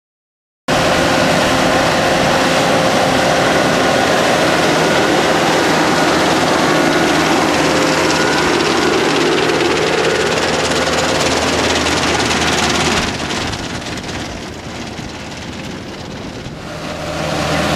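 Barber Surf Rake beach cleaner, towed by a tractor, running as it rakes and sifts dry sand: a steady loud machine noise over the tractor's low engine hum. It starts abruptly under a second in, dips for a few seconds past the middle, then comes back up near the end.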